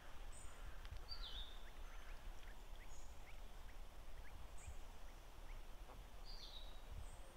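Lakeside outdoor ambience: a steady low rumble with small birds chirping. A short call falls in pitch about a second in and comes again about six and a half seconds in, with faint high peeps in between.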